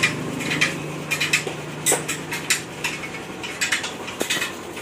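Irregular metallic clinks and taps of hand tools working on a motorcycle's rear wheel, with a faint low hum underneath that fades away.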